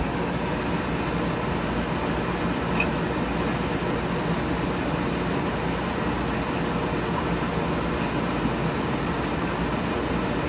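Steady whooshing background noise with a faint low hum, unchanging throughout, of the kind made by air conditioning or a moving vehicle's cabin.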